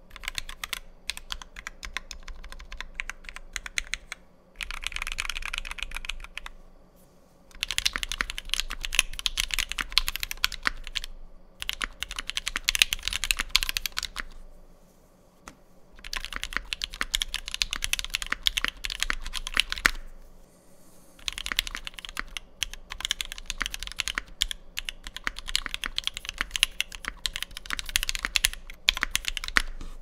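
Typing on a Typemaster 180 mechanical keyboard with a brass plate, lubed and filmed Alpaca V2 linear switches, Durock V2 stabilizers and GMK keycaps. Fast runs of key strikes come in bursts, with brief pauses between them.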